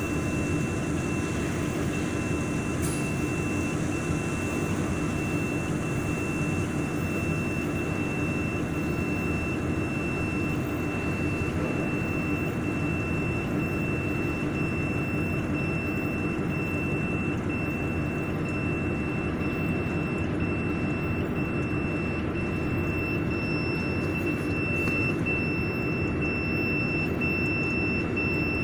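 Water chiller of a jewelry laser welding machine running with a steady fan hum, with a continuous high-pitched alarm tone over it while it shows error code E06.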